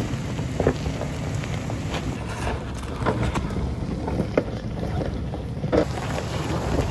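Toyota Prado four-wheel drive crawling slowly over a loose rocky track: a low, steady engine rumble, with the tyres crunching and knocking on stones and wind buffeting the microphone.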